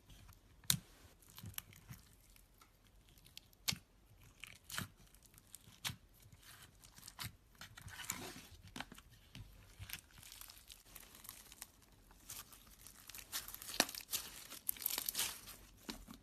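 Slime being squeezed and stretched by hand, giving irregular sticky crackles, pops and crinkly tearing sounds that grow busiest near the end.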